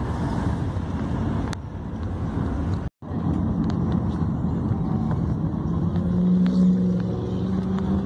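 Steady rumble of a car's engine and tyres on the road, heard from inside the moving car. The sound cuts out for an instant about three seconds in, and a steady hum rises near the end.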